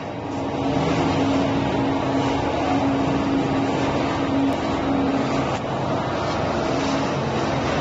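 Plastic-film squeezing machine of a recycling line running: a loud, even machine drone with a steady hum through it.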